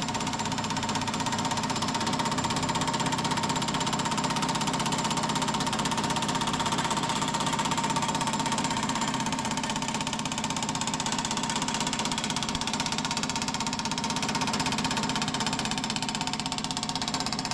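Power hammer running steadily with very rapid, even blows, working a sheet-metal repair panel between profile dies to put curve into it.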